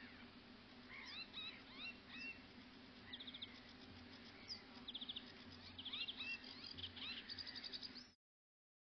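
Small birds singing and calling: many quick rising chirps and several rapid high trills over a faint steady hum, cutting off abruptly near the end.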